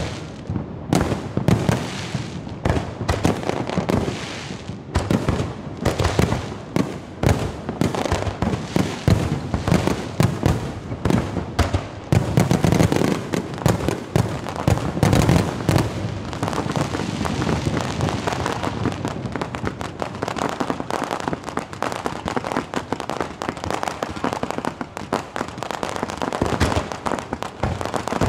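Fireworks display: aerial shells bursting in rapid succession with booms and pops, thickening into steady crackling in the second half.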